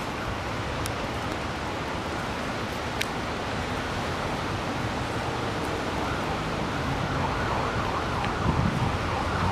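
Steady rush of the fast-flowing, ice-laden flooded river. An emergency-vehicle siren comes in about halfway through, wavering and growing louder toward the end.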